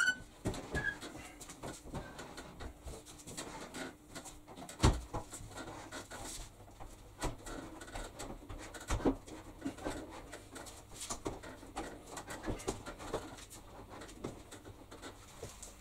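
Scattered knocks and clicks of a BUSH front-loading washing machine being shoved back into its cabinet gap and its controls handled, with a heavier thump about five seconds in and another about nine seconds in. A short high beep sounds right at the start.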